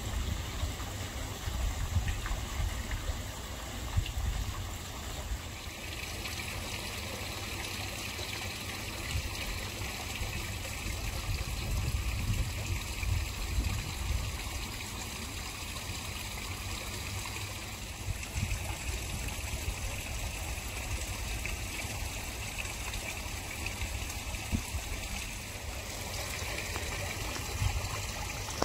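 Koi pond water trickling and splashing steadily, a continuous running-water sound with a low rumble underneath.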